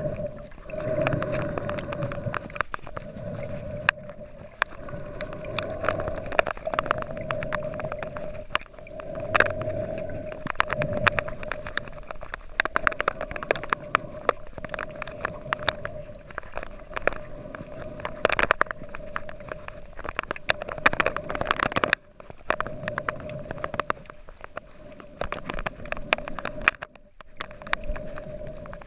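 Underwater sound picked up by a submerged camera over a coral-rubble seabed: a steady hum with a dense, irregular crackle of sharp clicks and occasional low rumbling swishes of moving water.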